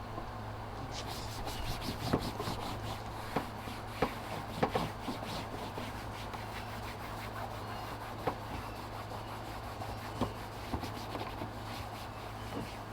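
Dust being brushed off the Lincoln Navigator's plastic engine cover: a long run of quick, irregular rubbing strokes with a few sharper scuffs, easing off near the end.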